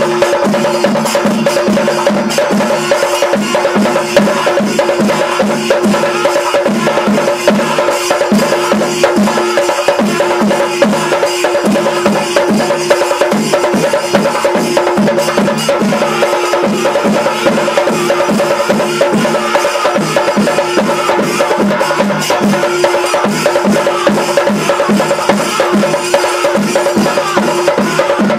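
Panchari melam temple percussion ensemble: rows of chenda drums beating a fast, even rhythm with sharp, dense strikes, while kuzhal pipes hold steady tones over the drumming.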